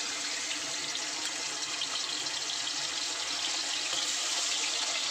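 Prawns coated in salt and turmeric sizzling steadily in very hot mustard oil in a steel karai, with a fine crackle.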